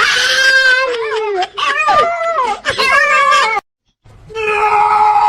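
A dog howling and whining in loud, wavering cries with short breaks. About three and a half seconds in, the sound cuts off dead, and after a brief silence a steady held tone begins.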